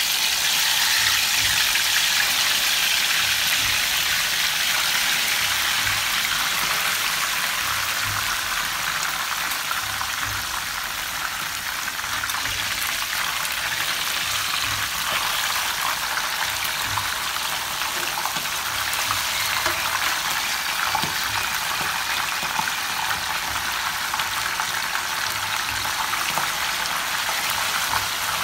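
Whole marinated pigeon sizzling in hot oil in a wok: a dense crackling hiss, loudest in the first few seconds and easing a little after. It is a brief fry to firm the meat.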